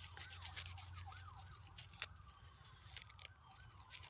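Thin, dry poplar bark being torn and shredded by hand into tinder: a run of crackling rips, the sharpest about two seconds in.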